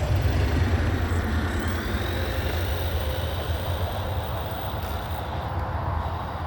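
An RC car's brushless motor whining up in pitch as it accelerates, then holding a steady high whine that fades as it runs away, over a steady low rumble.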